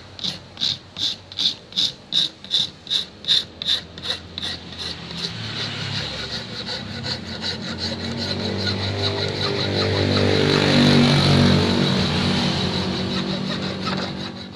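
Hand file rasping a knife-sheath blank in even back-and-forth strokes, about two or three a second. About five seconds in, the strokes quicken and run together into a steadier scrape, and low musical tones come in over the second half.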